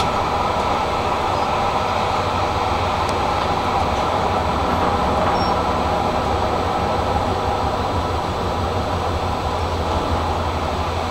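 Tram running steadily along its rails, heard from inside the front of the car: an even rolling rumble with a low motor hum.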